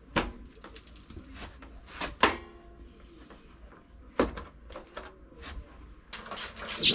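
Scattered clicks and knocks of objects being handled, the loudest at a quarter second, about two seconds and about four seconds in. A loud hissing rush begins right at the end.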